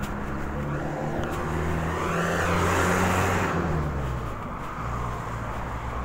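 A car driving past close by: its engine hum and tyre noise swell to a peak about halfway through, then fade away with a slight drop in pitch.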